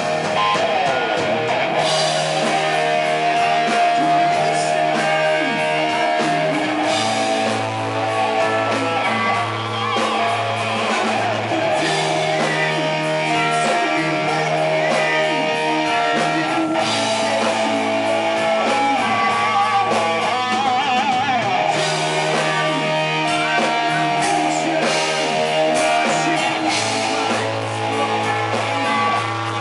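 Live rock band playing: electric guitar over bass and drum kit, loud and continuous, with the bass line changing note every few seconds.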